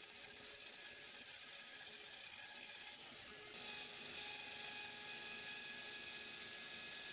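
Mafell router with a spiral upcut bit cutting a pine 2x2 across the grain while a drill spins the workpiece: a faint, steady machine whine with several tones over a hiss. It gets a little louder, with more high hiss, about three and a half seconds in.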